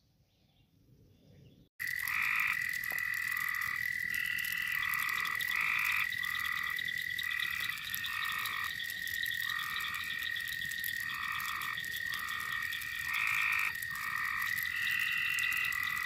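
Night chorus of frogs starting suddenly about two seconds in: a steady high-pitched trill with short calls repeating over it at a few different pitches.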